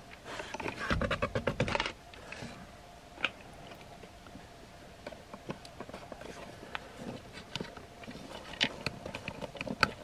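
Hard plastic parts of a Masters of the Universe Origins Stridor toy clicking, rattling and scraping as it is handled and its head is pulled off. A dense run of rattling comes in the first two seconds, then single clicks every second or so.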